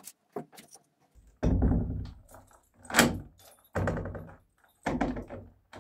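Key being turned over and over in a new Welka cellar-door lock, the bolt clacking with each turn, several clacks about a second apart. The bolt needs five full turns of the key to throw all the way.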